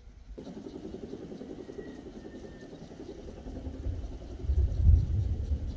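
Union Pacific diesel locomotive approaching, its engine running with a fast, even pulse and growing louder, with a heavy low rumble swelling from about four and a half seconds in.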